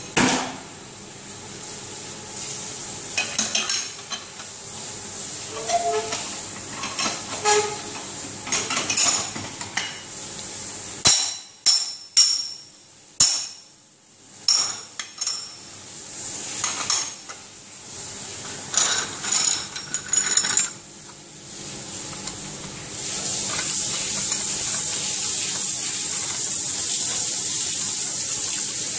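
Metal clinks and clanks of a concrete core drill rig's stand and anchor bolt being fitted and tightened against the wall. About three-quarters of the way through, a steady hiss of running water sets in and carries on, the drill's cooling water being turned on.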